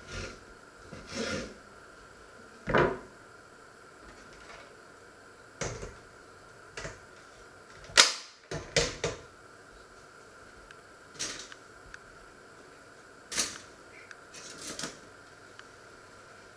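Scattered short knocks and clatters of handling on a wooden cutting board: a serrated bread knife cutting a bread roll and being set down, and objects being moved about on the counter. The loudest knock comes about eight seconds in, with a small cluster of clicks near the end.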